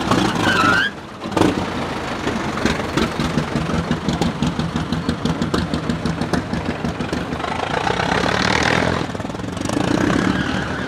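1909 Blitzen Benz's 21.5-litre four-cylinder engine running on the road with an even pulsing beat. It gets louder for a moment about eight seconds in.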